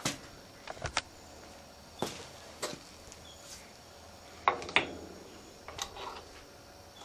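Scattered metallic clinks and knocks as tongs and a small workpiece are handled against the dies of a small forging air hammer. Two louder knocks come about four and a half seconds in, and some of the clinks ring briefly.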